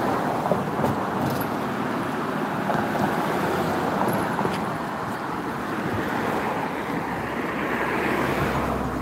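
Road traffic on a bridge: a steady rush of tyre and engine noise, swelling as a car passes close by near the end.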